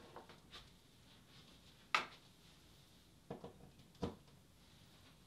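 A few short, sharp clicks and knocks of small parts and tools being handled while assembling a 3D printer kit, the loudest about two seconds in.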